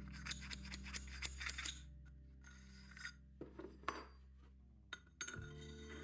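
Steel tube and steel shaft clinking and scraping against each other as they are handled and the shaft is slid into the tube: a quick run of light metallic clicks over the first two seconds, a short scrape near the middle, then a few more clicks. Soft background music runs underneath.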